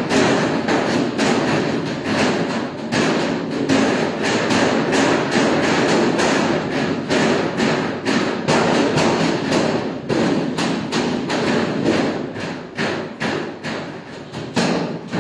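Hand-pulled noodle dough being swung and slapped down on stainless steel worktops by several people at once: an irregular, overlapping run of dull thuds, several a second.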